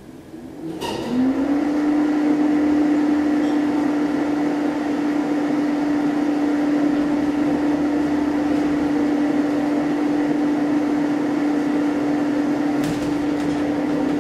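Hydraulic elevator running as the car travels: a steady hum that comes in about a second in with a short rise in pitch, then holds level. Right at the end the pitch starts to drop as the car slows on arrival.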